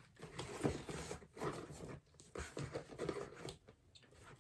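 Small items being handled and slid into a crossbody purse: soft rustling and scraping with a few light knocks.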